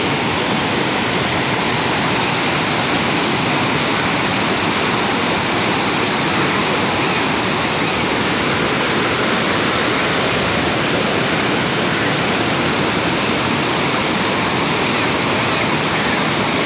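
Rain-swollen floodwater surging beneath a bridge: a steady, loud rush of churning water.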